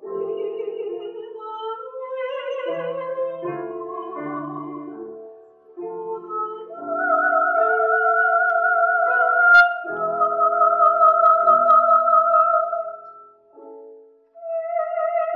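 Classical soprano singing with vibrato over grand piano accompaniment, holding long high notes through the second half, with a short pause for breath near the end.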